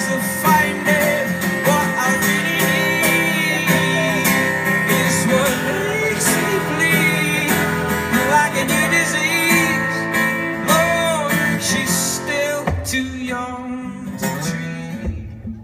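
Acoustic guitar strummed live with a wavering, wordless vocal line over it. The playing thins out and drops away about thirteen seconds in.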